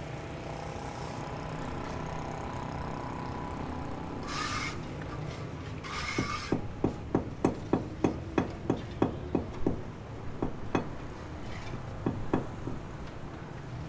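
A rapid run of sharp taps, about three a second for a few seconds, with a few more a little later, preceded by two short scraping hisses, like hand tools being worked.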